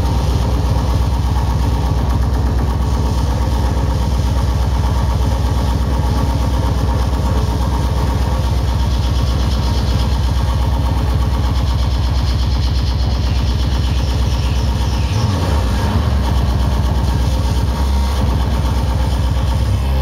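Loud, heavily distorted electronic noise music played live over a club sound system: a dense, unbroken wall of distortion over a rapid pulsing low end. The low end shifts briefly about fifteen seconds in.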